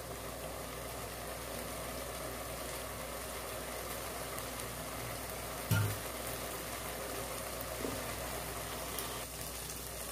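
Rice and masala sizzling gently in a nonstick pot on the stove, with a single short dull knock a little past halfway.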